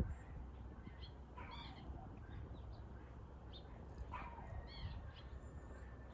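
Birds calling: a few short chirps over a low, steady background rumble.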